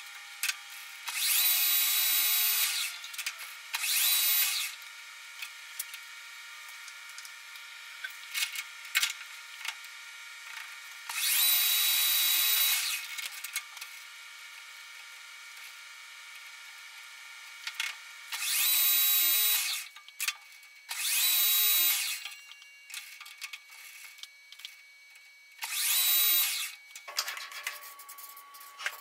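Metal lathe with a 5C collet chuck running steadily while titanium rod stock is faced and drilled. Six loud hissing bursts of one to two seconds each break through the running, with small clicks between them.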